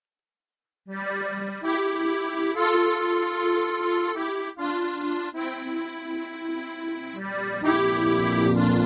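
Background music starts about a second in, after silence: a melody over held chords, with deeper bass notes joining near the end.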